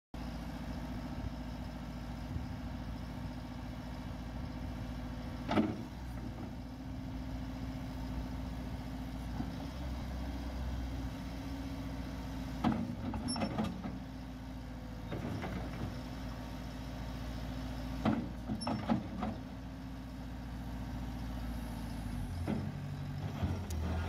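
JCB 300T compact track loader's four-cylinder turbo diesel running steadily as the machine moves and works its bucket. Sharp knocks from the machine come in three spells: once about five and a half seconds in, a quick run of them around thirteen seconds, and another run around eighteen to nineteen seconds.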